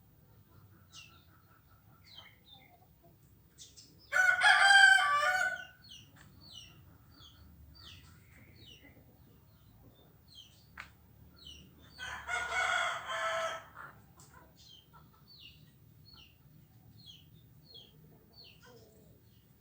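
A rooster crows twice, once about four seconds in and again about twelve seconds in, each crow lasting about a second and a half. Many faint, short, falling bird chirps are heard between the crows.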